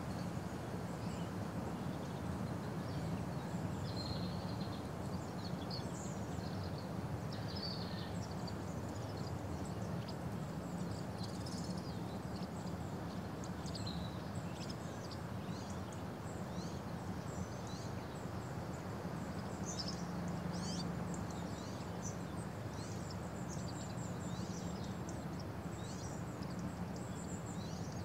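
Outdoor ambience: many small birds chirping on and off over a steady low background noise.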